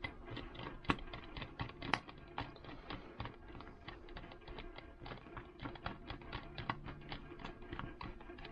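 Rapid light clicks and taps, several a second, from handling and closing up an aluminium utility knife while its halves are fitted back together and screwed shut.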